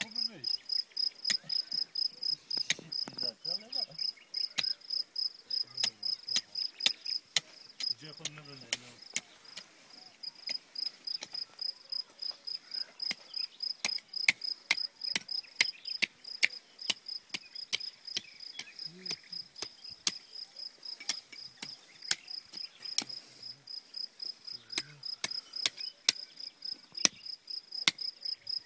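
Crickets chirping in a steady, high pulsing trill, with sharp regular clicks about three times a second from an impact sprinkler's arm as it sprays water.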